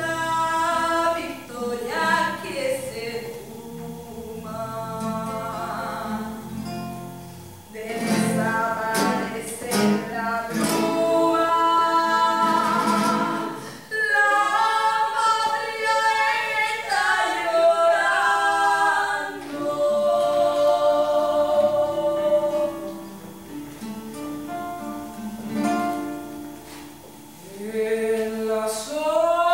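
Music: a song with several voices singing together over a plucked acoustic guitar.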